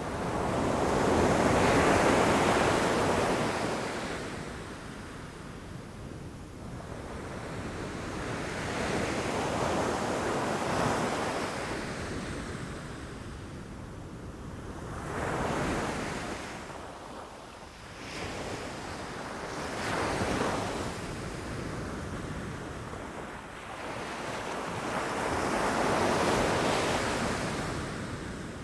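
Ocean waves breaking against rocks, a rushing surge that swells and ebbs about five times, loudest about two seconds in and again near the end.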